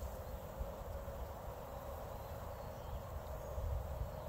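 Packaged honeybees humming steadily inside their screened shipping cages, with a low rumble underneath.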